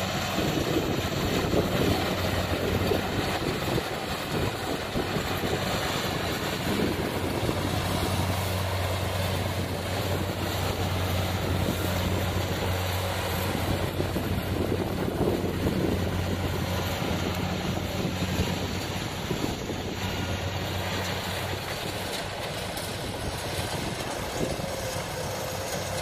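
Kubota DC-70 combine harvester's diesel engine running steadily as it cuts rice: a low, even hum over the noise of the working machine. It grows slightly fainter toward the end as the harvester moves off.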